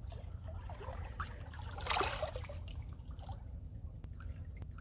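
Shallow river water trickling and lapping as arms move about under the surface, with a small slosh about two seconds in, over a low steady rumble.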